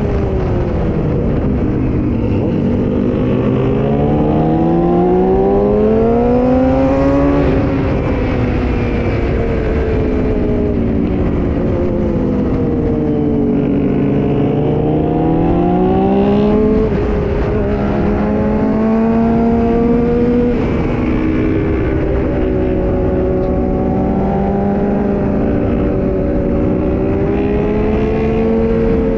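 Yamaha R6 sport bike's inline-four engine under way, rising in pitch under acceleration, easing off, accelerating again and then holding a fairly steady cruise, over heavy wind rush on the microphone.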